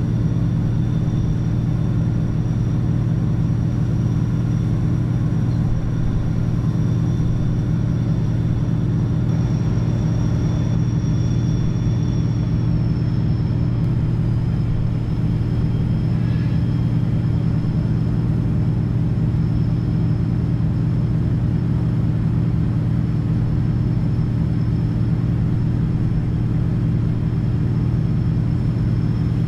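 Tugboat's diesel engines running steadily as it pushes a barge, a continuous low drone with a faint steady high whine above it.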